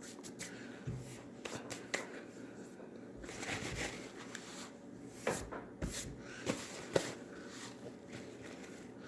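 Someone eating ridged potato chips (Utz Ripples): irregular crisp crunches and crackles, with a short denser rustling stretch about three seconds in and the sharpest crunches a little after five and seven seconds.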